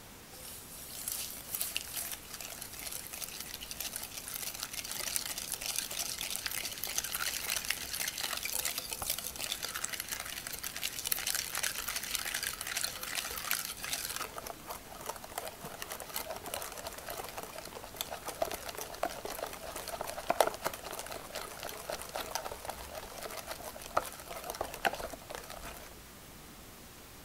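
Wire whisk beating egg yolks and sugar by hand in a glass bowl: a steady, rapid wet scraping and ticking of the wires against the glass. About halfway through the sound turns lower and duller as the yolk mixture thickens and pales, and it stops shortly before the end.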